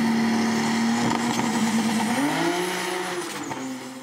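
Turbocharged Dodge Stealth V6 drag-car engine running hard at a steady high rpm, then revving higher about two seconds in, with a thin high whine rising above the engine.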